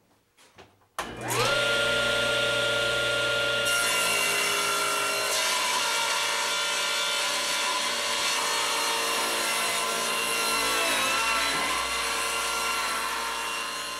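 Table saw switched on about a second in, its motor whining up to speed, then the blade crosscutting the end of a thick glued-up cherry tabletop. The pitch dips briefly under load near the end of the cut, and the sound fades toward the end.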